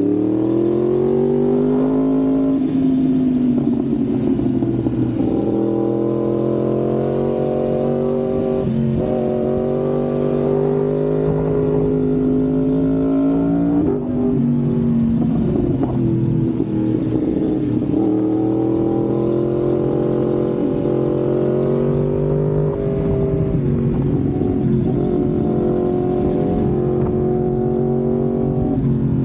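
Yamaha MT-10's crossplane inline-four running through an SC-Project aftermarket exhaust. Its pitch climbs slowly over several seconds at a time and drops sharply about 14 seconds in.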